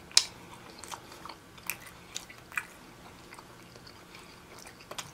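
A person biting and chewing seafood, with scattered sharp wet clicks and crackles of mouth and food sounds, the sharpest one just after the start.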